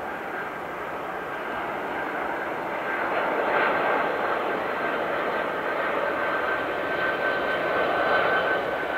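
Boeing 747 freighter's four turbofan engines on landing approach: a steady rushing jet noise that grows louder as the aircraft nears. A high, steady whine comes in about three seconds in.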